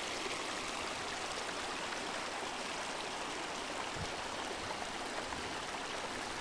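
Small mountain stream running over a rocky bed: a steady, even rush of water.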